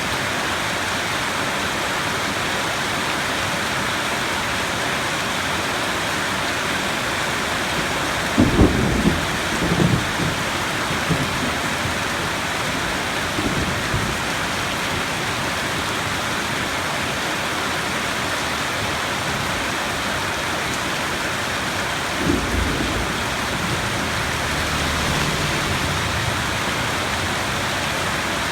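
Steady heavy rain hissing, with thunder rumbling in low bursts: a cluster of cracks and rolls about eight seconds in, a shorter one around fourteen seconds, another crack around twenty-two seconds, and a softer low rumble near the end.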